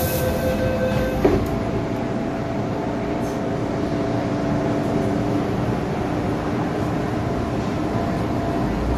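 MTR M-Train heard from inside the carriage as it draws to a stop: a steady rumble, with a motor whine that cuts off with a click about a second in and a fainter, lower whine that dies away around halfway.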